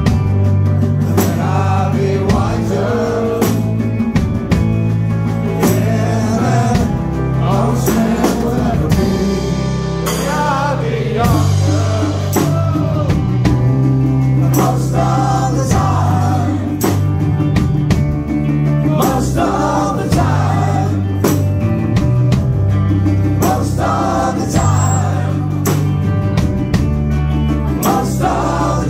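Live rock band playing with singing: electric guitar, a moving bass line and drums keeping a steady beat.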